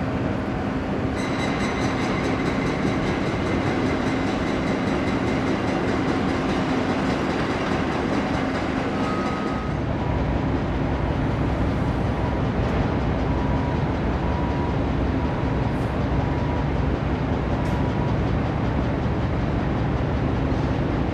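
GO Transit commuter train rolling past on the rails, with a high steady whine over the wheel noise. After a sudden cut, a GO Transit MP40PH-3C diesel locomotive leads an arriving train, its engine running with a deep drone under the rail noise.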